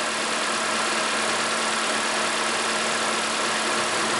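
Chevrolet Corsa's 1.0-litre four-cylinder engine idling steadily on its first start of the day after engine work, running smoothly with no tappet knock.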